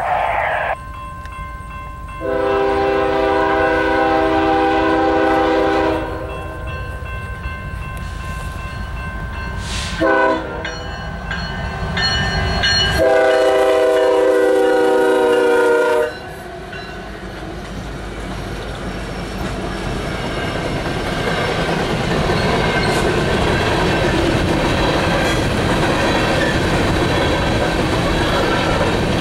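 Horn of a BNSF diesel freight locomotive, a GE ES44AC, blowing a long blast, a short blast and a final long blast, typical of a level-crossing signal. After the last blast cuts off, the steady noise of the locomotives and empty coal cars rolling past grows louder.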